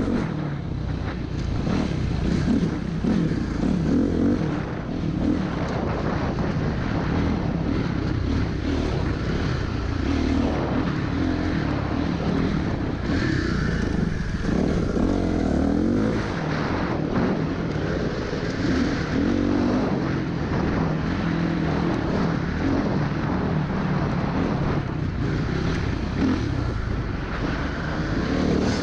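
Dirt bike engine running under way, its pitch rising and falling again and again as the throttle is worked through the turns.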